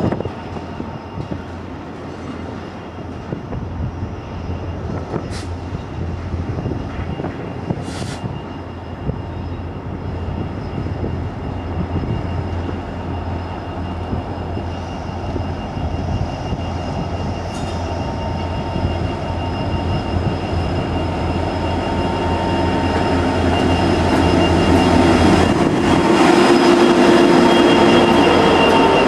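Union Pacific diesel freight locomotives approaching and passing, their engines rumbling steadily and growing louder toward the end. A few brief, high squeals cut through the rumble.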